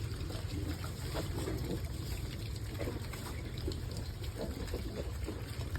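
Pig eating wet feed, with slurping and chewing over a steady low rumble.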